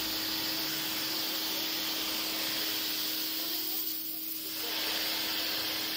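Pressure washer jet spraying against a concrete wall with a steady hiss, a steady hum underneath. The hiss briefly drops away about four seconds in, then comes back.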